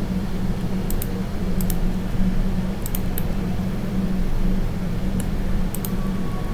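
Steady low hum with a band near 200 Hz, under about ten short, sharp clicks of computer input, in small clusters of two or three, from someone working a computer at the desk.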